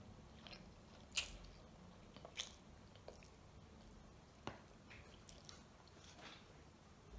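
A child eating ramen noodles: quiet slurping and chewing, with a few short sharp clicks, the loudest about a second in.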